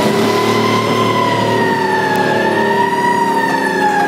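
Fire truck siren wailing, heard from on board the moving truck: its pitch holds high, wavers slightly, then starts to fall near the end, over the truck's engine running underneath.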